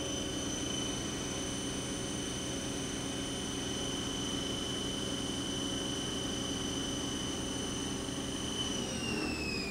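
Haas DS-30SS CNC lathe's 20 hp sub-spindle running at 2,500 RPM: a steady high whine over a low machine hum. Near the end the whine starts to fall in pitch as the spindle slows down.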